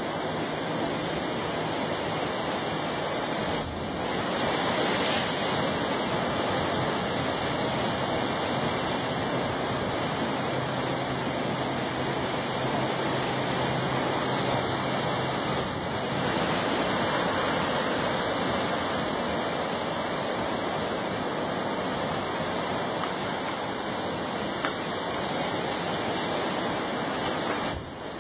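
Ocean surf washing on the shore: a continuous rushing wash that swells a little louder now and then.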